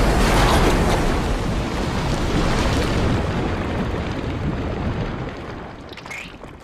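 Film sound effect of a big explosion: a deep, dense rumble already under way, which slowly dies away while matter showers down.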